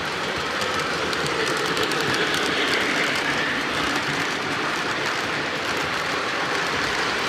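Lionel O gauge model steam locomotive and its freight cars rolling past on three-rail track: a steady rumble of metal wheels with rapid fine clicking, a little louder about two to three seconds in.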